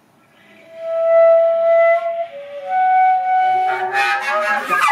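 Contemporary chamber music: a flute plays a few long held notes, one after another. About four seconds in, a dense, noisy ensemble texture breaks in.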